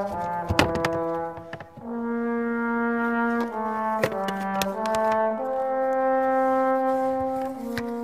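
Background music: a slow melody of long held notes in a brass-like tone, one note at a time, with a couple of sharp clicks.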